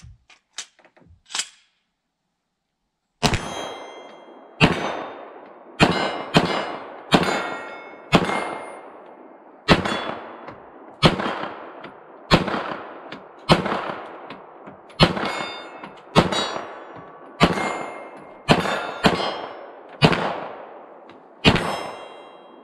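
Glock 34 9mm pistol with a ported barrel firing a steady string of shots, about one a second with some quick pairs, from about three seconds in. Steel plate targets clang as they are hit.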